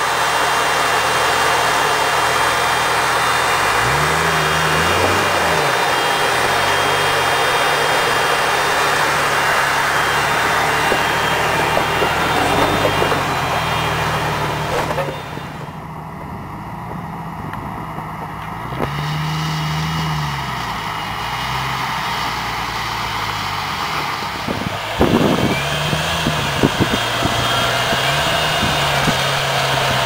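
Lifted Jeep's engine running at low speed, its revs rising and falling again and again as it crawls over rocks. A steady hiss lies over it for the first half and drops away about halfway through, and sharp knocks and clicks come in the last few seconds.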